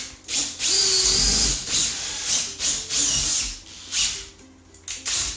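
Power drill boring holes into a plasterboard wall for heavy-duty plasterboard fixings. It runs in several bursts with a whine, the longest about a second in.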